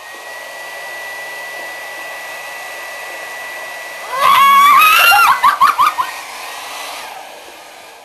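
Handheld hair dryer running with a steady airy rush and a thin high whine. About four seconds in, a loud drawn-out scream cuts over it and breaks into short choppy bursts; the dryer winds down near the end.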